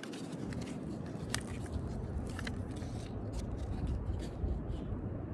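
Scissors cutting a piece of EPDM rubber roofing patch: irregular crisp snips and scrapes, with a low wind rumble on the microphone underneath.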